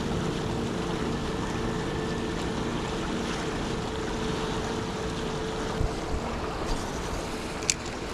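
Steady rush of a fast-flowing mountain river, with wind on the microphone. A couple of short clicks sound near the end.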